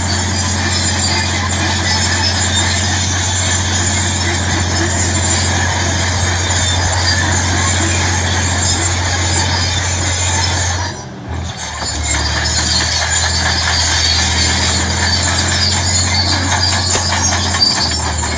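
Crawler tractor's diesel engine running steadily under load as it drags a deep-ripping plow through the soil, with a brief drop in the sound about eleven seconds in. Near the end the engine note steps lower as the plow is lifted out of the ground.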